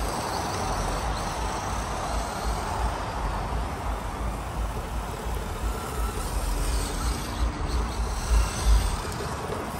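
Electric Traxxas 4Tec 2.0 RC car driving and drifting, its motor and sliding tyres making a steady noisy hiss, with an irregular low rumble underneath.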